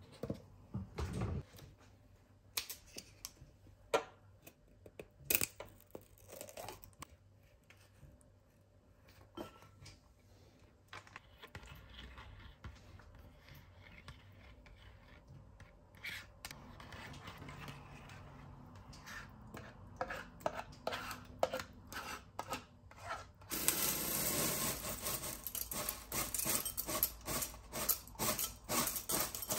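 Scattered clicks and knocks of objects being handled. About twenty-four seconds in, a louder steady hiss with quick crackling clicks starts.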